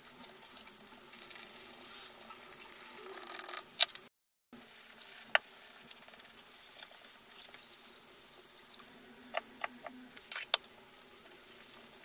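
Small metallic clicks, taps and scrapes of hand tools and engine parts being handled during motorcycle engine assembly, over a faint steady hum. The sound drops out for a moment about four seconds in.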